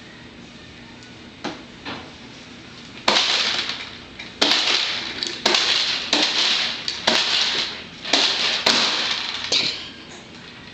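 A child's plastic toy being worked: a run of about eight sudden, hissy scraping clatters, starting about three seconds in.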